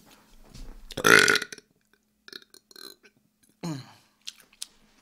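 A man's loud burp about a second in, from someone full after a big meal, followed a little before four seconds in by a shorter sound that falls in pitch.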